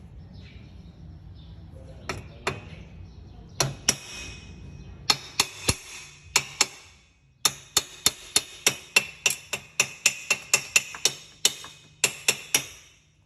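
Repeated sharp knocks with a short ring after each: a few spaced strikes at first, then a steady run of about three a second that stops near the end.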